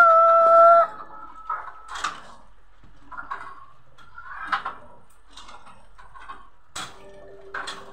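A held sung note from a children's cartoon on the television, ending about a second in; after it, scattered soft knocks and short faint sounds.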